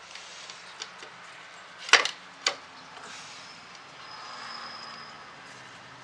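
Light handling noise from lashing cord tightly around the wooden sticks of a small Andean awana loom, with sharp wooden knocks, the loudest pair about two seconds in, half a second apart.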